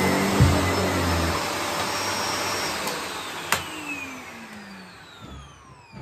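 Sebo Felix upright vacuum cleaner running on carpet, with a thump about half a second in. About three and a half seconds in it is switched off with a click, and the motor spins down with a falling whine.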